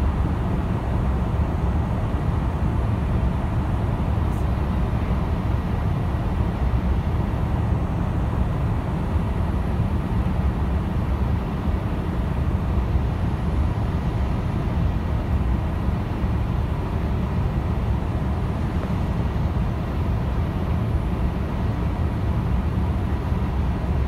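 Steady in-flight cabin noise of a Boeing 787-8 heard from a window seat beside its GEnx-1B engine. A deep, even rumble of engine and airflow, with a faint steady high whine over it.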